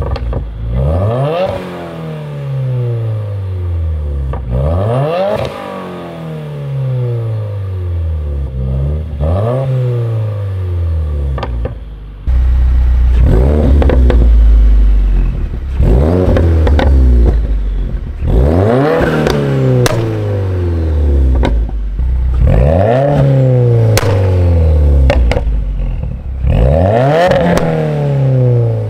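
Subaru WRX turbocharged flat-four with a catted turboback Q300 exhaust, revved hard about eight times, every three to four seconds. Each rev climbs and drops, and the exhaust crackles and pops as the revs fall: the sign of a crackle-and-pop (burble) map on the engine tune. It is louder from about twelve seconds in.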